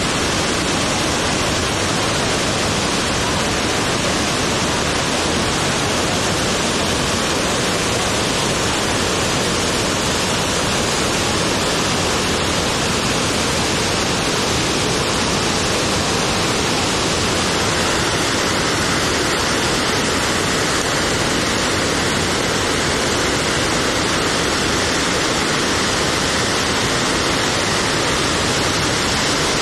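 Iguazu Falls' cascades: a loud, steady rush of falling water that does not let up.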